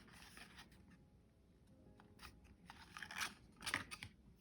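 Packaging being handled during an unboxing: faint, scattered rustling and crinkling, with two louder crinkles near the end.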